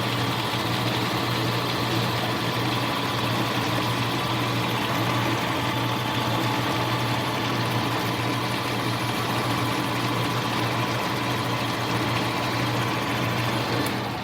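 Benchtop metal lathe running steadily under power while turning a cut, a constant motor hum with a higher gear whine.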